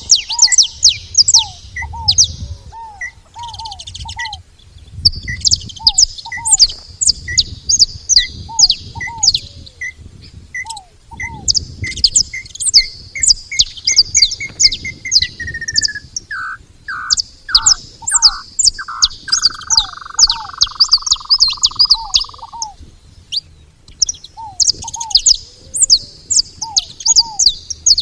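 A group of saffron finches chirping, long runs of fast, high chirps with short gaps. Another bird gives a repeated lower call throughout, and about midway a series of notes speeds up and slides down into a long whistle that stops about three quarters of the way through.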